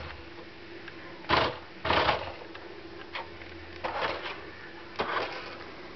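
Electric drive motor of an XQ 1:16 radio-controlled Porsche Cayenne toy car whirring in several short bursts as it drives on carpet, with a faint steady hum underneath.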